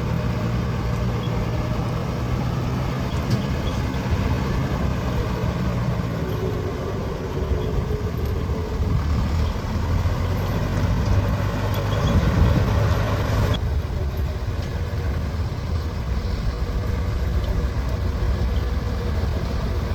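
Heavy diesel engine running with a steady low drone. Its pitch shifts about six seconds in and it grows louder around twelve seconds.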